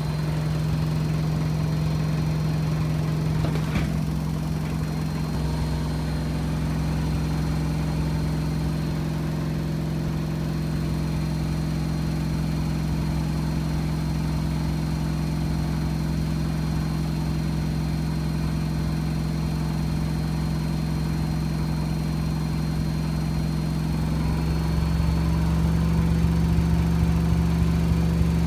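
AEG Öko-Lavamat washing machine running a high-speed spin, its motor giving a steady hum. There is a brief click about four seconds in, and near the end the hum rises slightly in pitch and gets louder as the drum speeds up.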